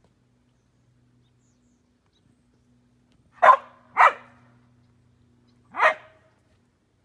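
Husky barking three times: two quick barks about half a second apart, then a single bark about two seconds later.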